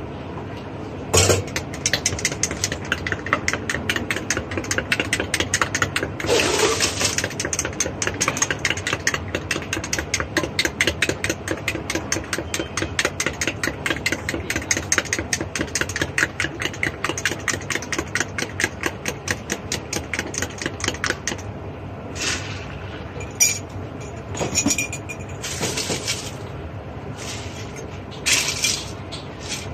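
A metal spoon clinking rapidly against a small glass as a drink is stirred, about five clinks a second for some twenty seconds. It stops near two-thirds of the way through and gives way to a few separate clatters of glassware and utensils.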